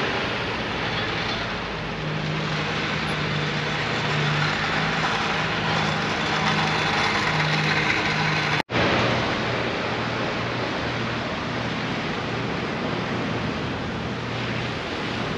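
Car engines running as show cars drive out, a steady engine note over road and crowd noise. About nine seconds in the sound breaks off for an instant and resumes with a lower engine note.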